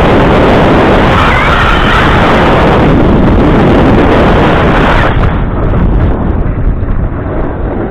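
Heavy wind buffeting on an action camera's microphone, loud and rough, easing somewhat about five seconds in.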